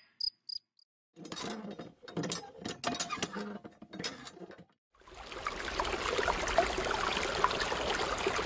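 Handmade miniature hand water pump worked by its lever, rattling and clicking in irregular strokes. From about five seconds in, a steady stream of water pours from its outlet tube and splashes into a small pool.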